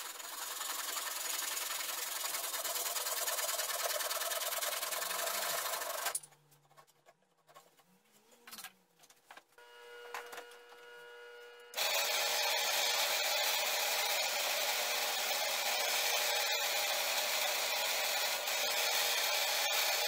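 Hand saw cutting wood with steady strokes, stopping abruptly about six seconds in. After a few seconds of near quiet, a similar steady rasping of a hand tool on wood resumes to the end.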